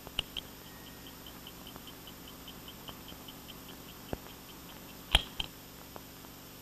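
Mechanical stopwatch: a click as it is started, then an even ticking about five times a second, and a louder click a little after five seconds in as it is stopped.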